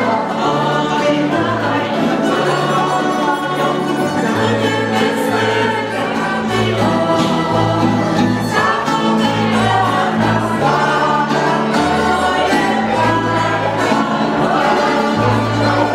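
A small acoustic band of guitars and an upright double bass playing dance music, with several voices singing along; the bass steps between notes in a steady beat.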